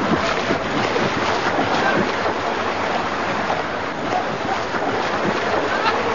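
Swimming-pool water splashing and sloshing around a swimmer in the churned-up water at the pool edge, a steady rushing noise.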